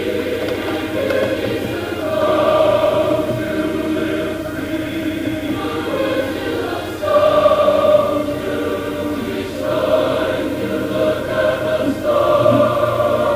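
Choral film score: a choir singing long held chords that shift every second or two, with orchestral backing.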